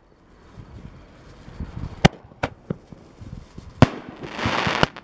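Red strobing-comet Roman candle firing: a run of sharp pops and bangs, the loudest about two seconds in and again near four seconds, with a rushing hiss just before the last bang near the end.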